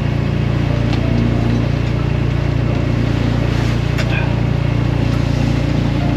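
Sailboat's inboard engine running steadily under way, a low, even drone. A couple of light knocks about one and four seconds in.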